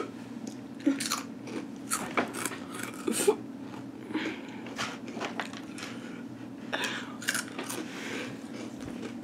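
Someone chewing Takis Habanero rolled tortilla chips: a string of irregular sharp crunches, with a hand picking more chips from a plastic bowl.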